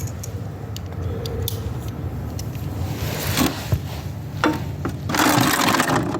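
Metal hand tools clinking and rattling as they are handled, with a longer rattling clatter about three seconds in and again about five seconds in, over a steady low hum.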